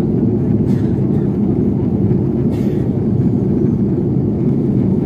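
Steady low drone inside a jet airliner's cabin in flight: engine and airflow noise heard at a window seat. Two faint brief ticks about a second and two and a half seconds in.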